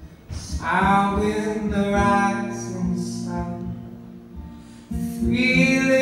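Male voice singing over a strummed acoustic guitar in a live performance: one long sung phrase, then a new phrase begins about five seconds in while the guitar keeps strumming.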